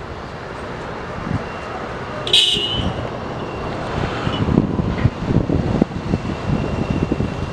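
Airbus A320neo with CFM LEAP-1A turbofans taxiing: a steady engine rumble with a thin high whine, and wind buffeting the microphone. About two seconds in, a short high-pitched tone sounds once.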